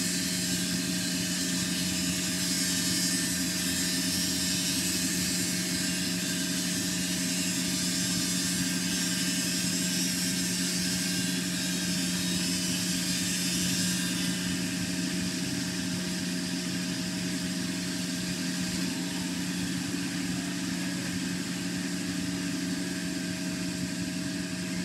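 A large crankshaft-machining machine running: a steady mechanical hum with an even high hiss over it. The hiss eases off about halfway through.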